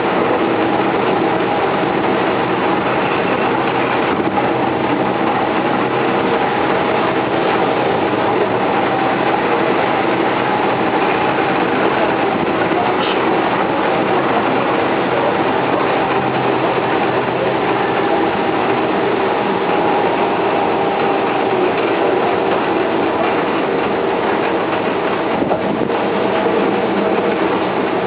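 Keihan 3000 series electric train running at a steady speed: an even rumble of wheels on rail with several steady humming tones held throughout.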